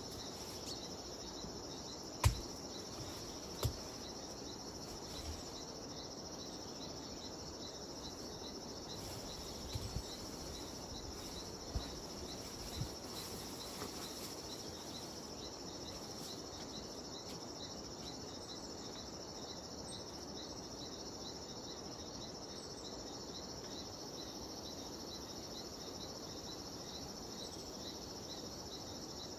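Cicadas (chicharras) keeping up a steady high-pitched drone, with a regular chirp repeating about every half second. A few low thumps in the first half, the loudest about two seconds in.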